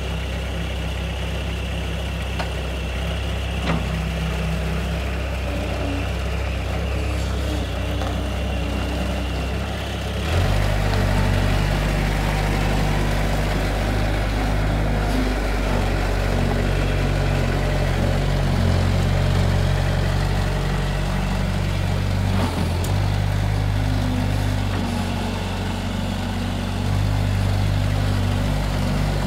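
Bobcat 773 skid-steer loader's diesel engine idling just after start-up, then throttled up about ten seconds in and running louder and faster while the loader drives and lifts its bucket.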